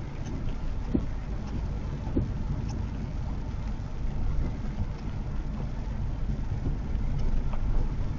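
Steady low rumble of road and tyre noise heard inside a moving car, with a couple of light knocks about one and two seconds in.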